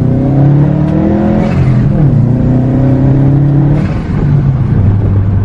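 2012 Subaru WRX's turbocharged flat-four pulling hard under boost. It rises in pitch, drops sharply at a gear change about two seconds in, rises again, then lifts off near four seconds in. With no blow-off valve, the lift-off brings on stock-turbo compressor surge flutter.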